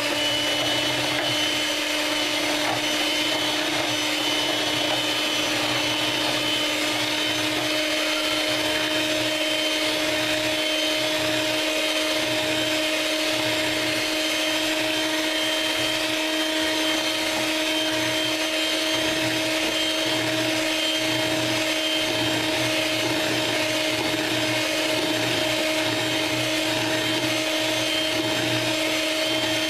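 Electric hand mixer running at one steady speed with a constant whine, its beaters whipping egg whites and sugar into a French meringue.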